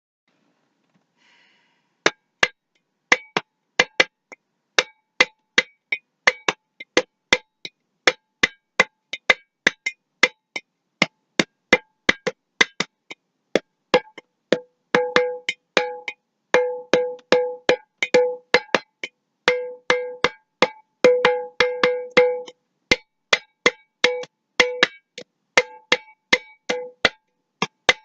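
Glass mason jar tapped over and over in an uneven rhythm, about two or three sharp taps a second, each ringing with a short tone. From about halfway through, many of the taps ring on longer.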